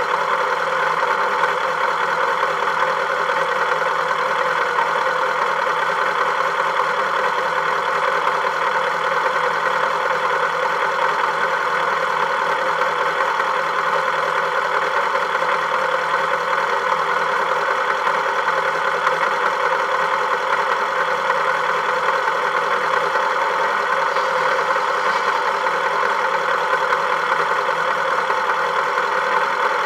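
Engine of a Volkswagen vehicle running steadily, an even, unchanging hum.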